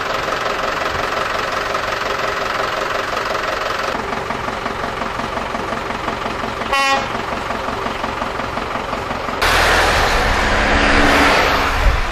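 Many car horns honking together in overlapping steady tones, from a flag-decked convoy celebrating. About nine seconds in, a sudden cut to a louder rumbling outdoor noise with horns still sounding.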